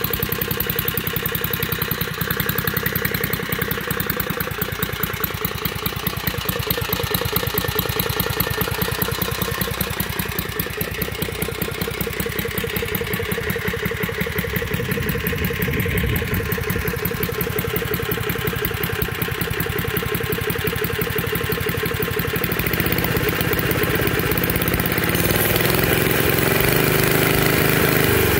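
Small single-cylinder engine of a 1974 Golden Pinto mini bike idling steadily, getting somewhat louder in the last few seconds.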